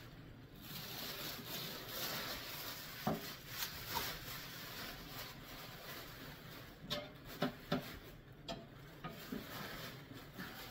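Thin plastic bag wrapping crinkling and rustling as it is pulled and bunched off a machine, with a few light knocks scattered through.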